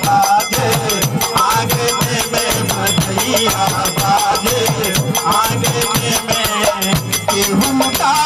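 Live Hindi devotional folk song with harmonium, a man singing, and rattling hand percussion keeping a quick, steady beat.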